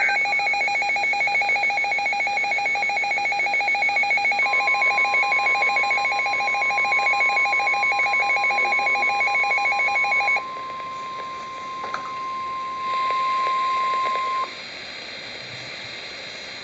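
Emergency weather alert tones. A rapidly pulsing, ringing electronic alarm sounds and stops abruptly about ten seconds in. Overlapping it, the steady single-pitched National Weather Service warning alarm tone starts about four seconds in, briefly grows louder and cuts off a couple of seconds before the end, leaving faint hiss.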